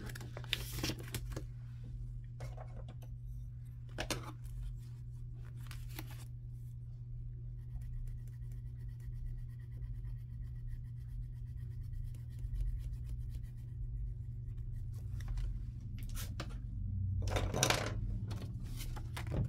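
Paper money and a plastic binder envelope being handled, with short rustles and clicks in the first few seconds and again near the end. In between comes the faint scratch of a coloured pencil shading in squares on a paper savings tracker. A low steady hum runs underneath.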